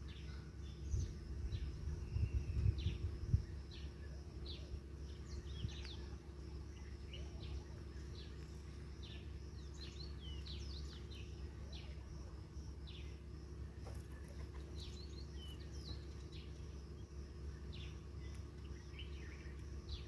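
Birds chirping in many quick, short notes, over a steady low rumble. Between about one and three seconds in there is a cluster of louder low thuds or buffets.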